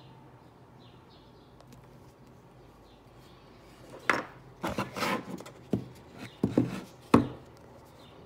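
Handling noise on a work table as the small canvas and paint squeeze bottle are moved: a quick run of knocks and rubbing starting about halfway in, ending in one sharp knock.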